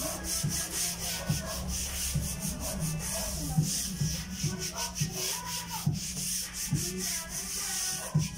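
Hands rubbing and smoothing a nylon umbrella canopy flat over a wooden screen-printing pallet: a dry brushing, scuffing sound in quick, irregular strokes.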